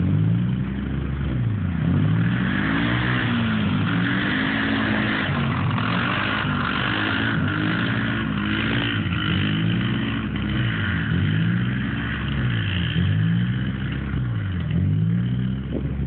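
ATV (quad bike) engine revving, its pitch dropping and climbing again over and over every second or two as the throttle is worked.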